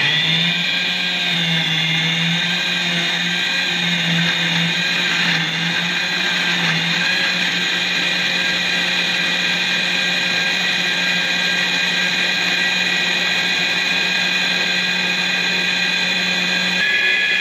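Electric countertop blender running steadily at full speed, blending melon, milk and ice into a shake, with a constant motor whine.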